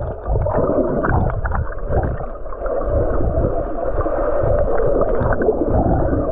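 Rough sea water sloshing and rushing, muffled, with uneven low rumbling buffeting.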